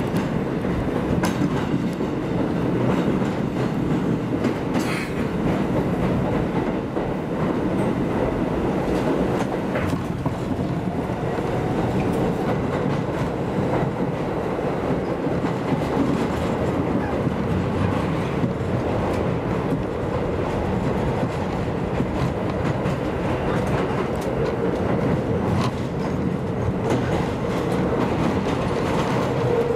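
Bombardier R62A subway train running through a tunnel, heard from inside the lead car at its front window: a steady rumble of wheels on track with scattered clicks over rail joints. A steady tone under the rumble grows stronger near the end.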